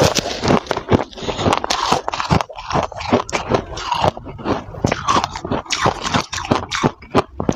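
Freezer frost being bitten and chewed, a continuous run of loud, irregular crunches and crackles.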